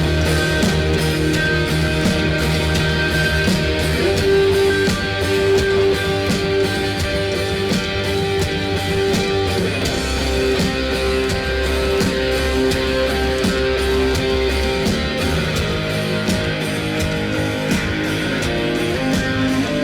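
Rock band playing live: guitars over a steady drum beat, with no singing yet.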